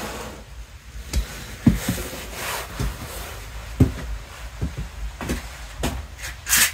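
A person moving about close by: scattered light knocks and thumps, about half a dozen, with the rustle of a nylon jacket, over a low steady hum.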